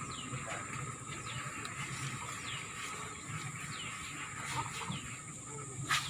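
Birds chirping: short calls that fall in pitch, repeating a few times a second, over a steady high-pitched whine. One sharp knock comes near the end.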